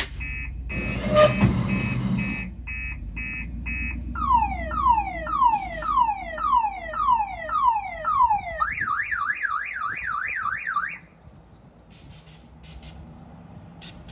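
Electronic multi-tone car-alarm siren cycling through its sounds: a pulsed beeping tone, then a run of falling whoops, then a fast up-and-down warble, cutting off about eleven seconds in. A low steady hum runs underneath and drops away at the same time, and a few faint clicks follow.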